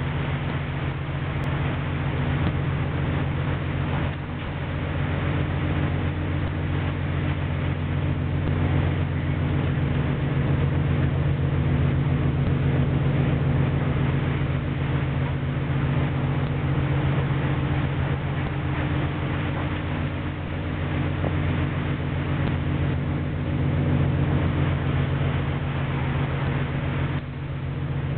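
Longline fishing vessel's engine and deck machinery running, a steady low drone with several held tones, under a constant rush of storm wind and sea.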